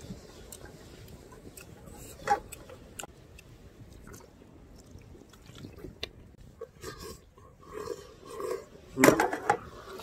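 A man chewing a mouthful of noodles, with a few light clicks of wooden chopsticks against a stainless steel pot. Near the end come a few short hummed sounds, then a brief loud voice.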